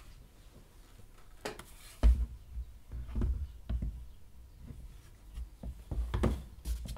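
Handling noise of a plastic cordless handheld vacuum cleaner being lifted and set down on a table: a few light knocks and low thumps, the loudest about two seconds in. The vacuum's motor is not running.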